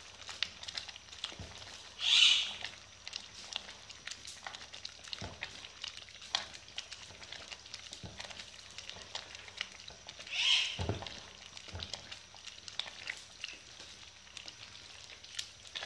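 A wooden spoon slowly stirring thick, simmering lentil dal in a metal pot, with faint scrapes and taps against the pot. Two short high-pitched calls stand out above the stirring, about two seconds in and about ten seconds in.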